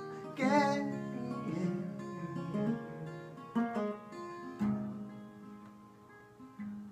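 Acoustic guitar picked and strummed slowly, with a few sharper strums in the second half. Near the start a man sings the word "again," holding it with a wavering vibrato.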